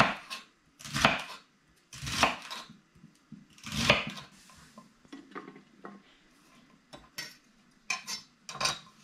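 Kitchen knife cutting through a bunch of lined-up celery ribs on a cutting board: four loud crunchy cuts about a second apart, then a few lighter knocks of the knife on the board near the end.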